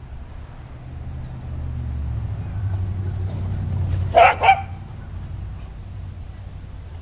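A corgi barks twice in quick succession, sharp and loud, about four seconds in, over a low rumble that swells and then fades.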